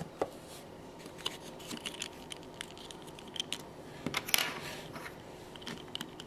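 Scattered light clicks and taps of a small plastic model engine being handled against a stand made of popsicle sticks, the sharpest click a little over four seconds in.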